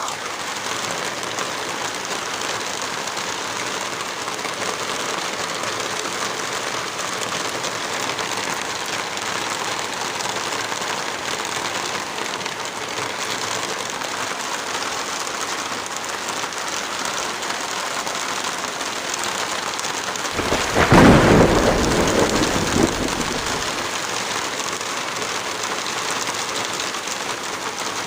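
Heavy rain falling steadily. About twenty seconds in, a deep rumble swells up for some three seconds and is the loudest sound, then fades back into the rain.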